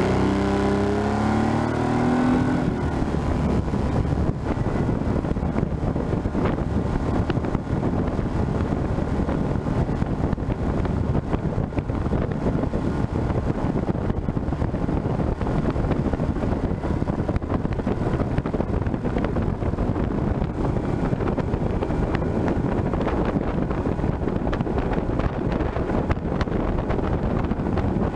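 40 hp Yamaha tiller outboard on an inflatable RIB, revving up with a rising pitch over the first couple of seconds, then running steadily at speed under a dense rush of noise.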